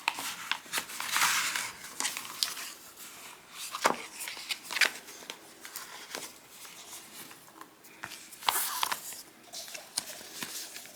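Packaging being handled and unwrapped: irregular crinkling and rustling with scattered sharp clicks and snaps, loudest in a few brief spells.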